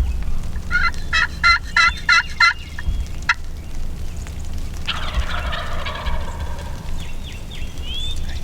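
Wild turkey gobbler gobbling close by: a fast rattling run of about seven notes. About two seconds later a longer call follows, falling in pitch.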